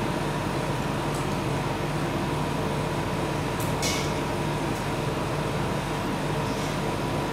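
Refrigeration unit of a rolled ice cream cold plate running with a steady hum. A brief sharp click cuts in a little before the middle.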